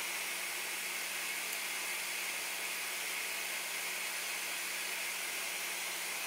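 Steady, even fan-like hiss with a faint low hum underneath, unchanging throughout.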